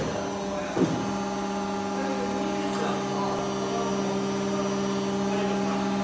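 Aluminium die casting cell's machinery running with a steady, constant-pitched hum, which starts with a short clunk about a second in as the automatic ladle arm moves.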